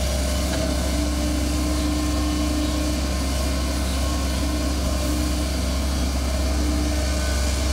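Kobelco hydraulic excavator's diesel engine running steadily while the machine digs and dumps soil, with a constant low hum.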